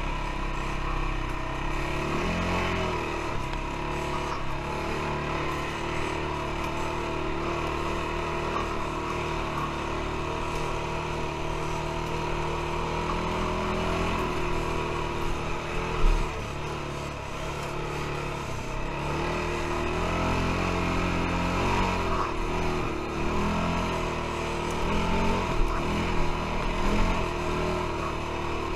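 ATV (quad bike) engine running under changing throttle while riding, its pitch rising and falling. A sharp knock about sixteen seconds in, and a few smaller knocks near the end.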